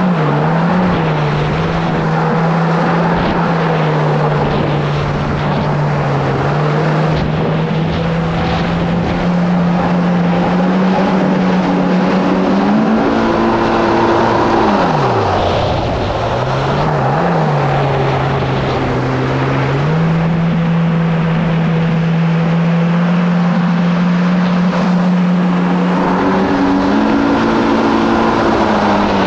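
Kawasaki SX-R 1500 stand-up jet ski's four-cylinder four-stroke engine running under way at a steady cruise, over the rush of water and wind. The revs drop off and climb back about halfway through, and rise again near the end.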